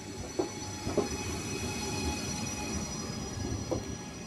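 Trenitalia Jazz regional train rolling along the platform, its wheels squealing with several steady high-pitched tones over a low rumble, and a few sharp clunks about half a second, one second and near the end.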